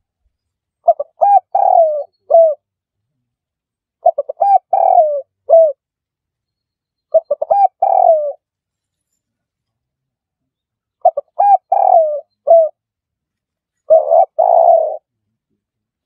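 Spotted dove cooing: five phrases a few seconds apart, each a quick run of short notes followed by one or two longer coos.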